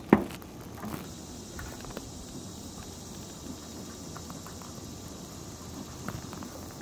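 A single sharp knock of wooden beehive parts near the start, then a few faint clicks as the hive boxes and frames are handled, over a steady high insect drone.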